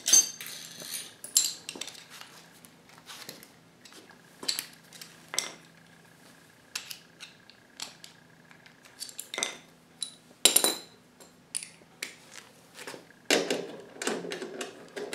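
Irregular metal clinks and taps as bolts are started by hand to fasten the rail onto a garage door opener's steel head-unit chassis, with a denser rattle of handling near the end. A faint steady hum underneath.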